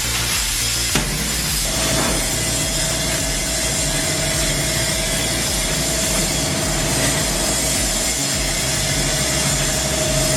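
Heavy industrial shredding machinery running: a steady low engine drone under a rough grinding noise, with a constant whine joining in about two seconds in.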